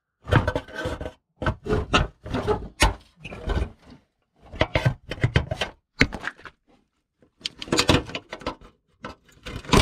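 Metal fork-shaped clip tool scraping and clicking against a plastic push clip and the fender bracket as it pries the clip loose. It comes in bursts of scrapes and knocks with short pauses between them, and a sharp click near the end.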